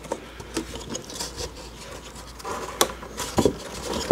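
Hands rubbing and pressing on a plywood enclosure base in its frame, with a few light wooden knocks in the second half.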